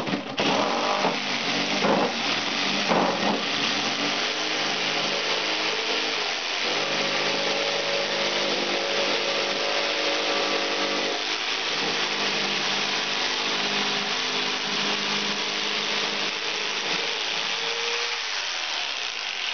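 Saber saw with a 3-inch blade running continuously as it cuts through the aluminum fins of an air-conditioner coil, stripping them off the copper pipe; a steady motor tone under dense cutting noise, its pitch shifting a few times as the load changes.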